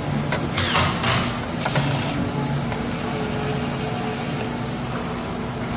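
Cordless drill-driver running in two short bursts about a second in, driving a screw through a mounting tab into a sheet-metal enclosure, over a steady low mechanical hum.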